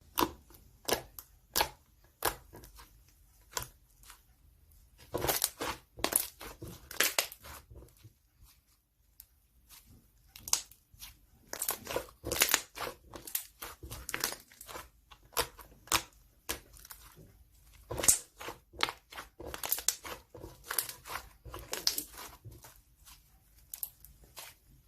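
Crinkly material being handled by hand: irregular sharp crinkles, taps and short tearing rustles, with a quieter pause about a third of the way in.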